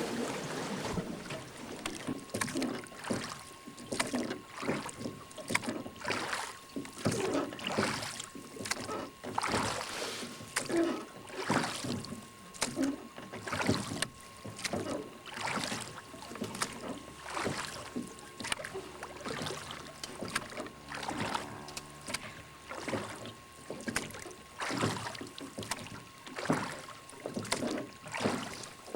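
Water slapping and splashing against the hull of a fishing boat on the river, in irregular strokes about one or two a second.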